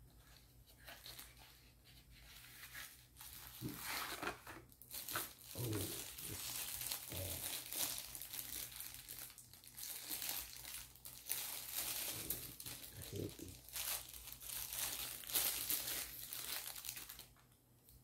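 Clear plastic bag crinkling and rustling as hands unwrap a small accessory from it, the crackling coming and going unevenly and stopping shortly before the end.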